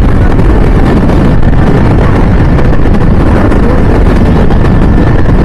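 Steady rush of wind and road noise on a helmet-mounted microphone while riding a two-wheeler at speed.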